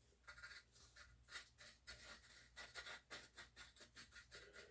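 Faint quick scraping and clicking of a freshly greased seat post being worked in and out of a bike frame's seat tube, several short strokes a second.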